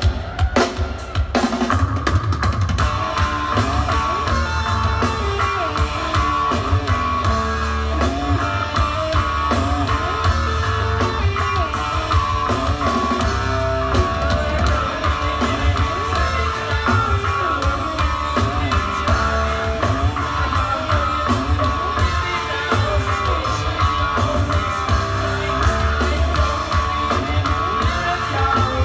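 Live rock band of bass guitar, electric guitar and drum kit playing, with a heavy bass low end and steady drum hits throughout.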